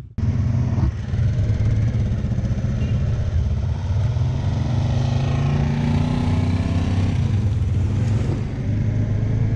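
Motorcycle engine running steadily while riding, heard from the rider's position with wind rush; the engine note rises a little in the middle and eases off near the end.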